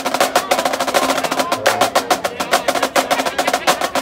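Marching snare drums played by a drumline snare section in a fast, unbroken cadence of crisp, rapid strokes, many to the second.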